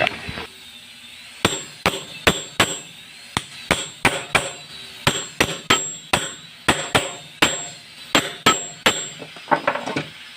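Repeated sharp strikes, roughly two a second and some in quick pairs, each with a faint metallic ring: a tool being struck to cut through a rubber belt, the new tire for a band saw wheel.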